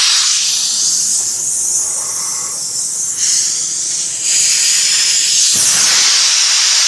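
Nitrogen at about 250 psi, left over from a leak test, being vented from a car's AC system: a loud, high hiss that eases a little in the middle, swells again and cuts off abruptly at the end.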